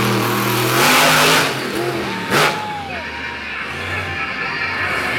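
Grinder monster truck's engine running hard and revving, its pitch sweeping up and back down about two seconds in, with a short, loud burst of noise about two and a half seconds in.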